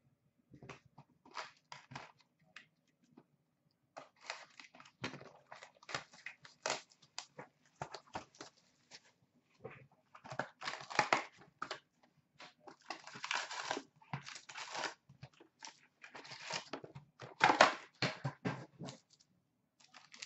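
A cardboard box of hockey card packs being torn open and its card packs handled, with irregular bursts of tearing, rustling and wrapper crinkling.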